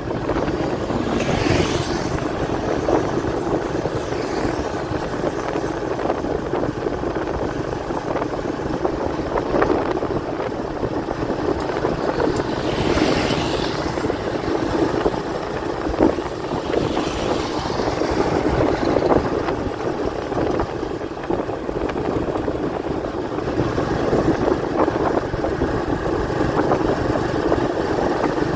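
Steady road and wind noise of travelling along a highway, with the whoosh of a passing vehicle near the start, another about halfway through and a third a few seconds later.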